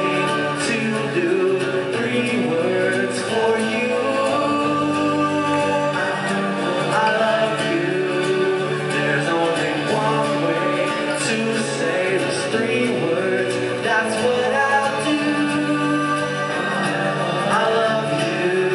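Live band performance: strummed acoustic guitars under male singing, heard from the audience.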